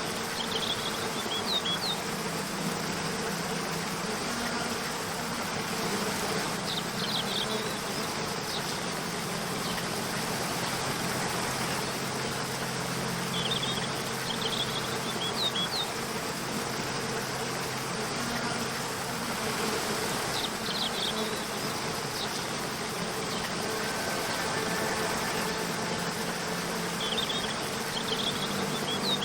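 Steady rushing of a waterfall, with soft low sustained tones of background music under it. Small clusters of short high chirps come every several seconds.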